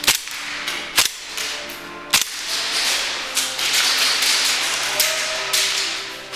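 Airsoft gun firing single shots: three sharp cracks about a second apart, followed by a few seconds of steady rushing noise.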